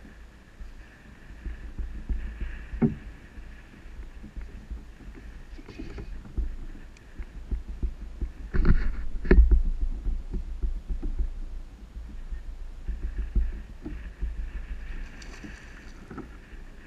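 A kayak rocking on choppy water: low rumbling thumps of water against the hull, with a handful of sharp knocks spread throughout. Near the end, a hooked largemouth bass splashes at the surface.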